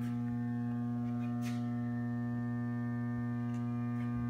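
Steady low electrical hum with a ladder of overtones from the powered-up heavy-duty alternator and starter test stand.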